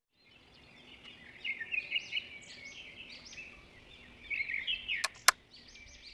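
Small birds chirping and twittering in quick, overlapping short calls, with two sharp clicks a little after five seconds in, the second one the loudest.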